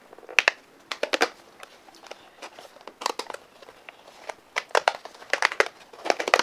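Thin paperboard candy-kit box being torn open along its perforated tab: a series of sharp cardboard crackles and tearing sounds in several separate clusters.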